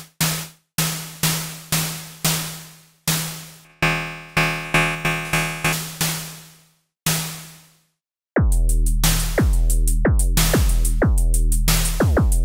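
Synthesized drum sounds from Reason's Subtractor synth, triggered from Kong drum pads: short electronic percussion hits about two a second with decaying tails, their tone and decay changing as the patch's envelope and oscillator settings are edited. After a short break about eight seconds in, a deep sustained bass tone with quick falling-pitch strikes over it takes over.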